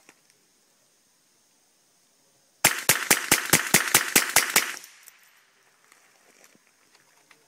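CBC 7022 semi-automatic .22 rifle firing ten quick shots, about five a second, emptying its ten-round magazine in about two seconds, starting a little over two and a half seconds in. Each crack has a short echo.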